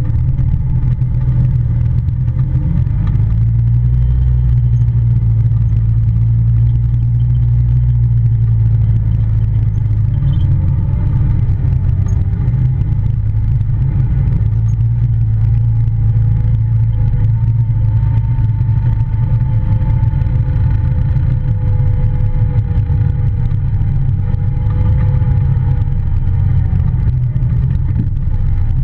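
Polaris Ranger side-by-side running steadily under way: a loud, constant low engine drone, with a faint higher whine that drifts a little in pitch.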